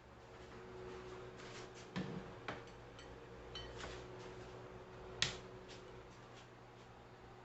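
Light clicks and knocks of dishes and utensils being handled in a kitchen, the sharpest about five seconds in, over a faint steady hum.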